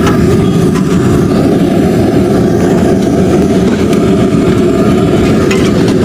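A loud, steady low rumble, with a few light clinks of steel dishes over it.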